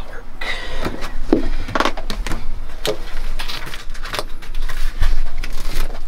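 Handling noises from work on the installation: irregular knocks, clicks and rubbing or scraping.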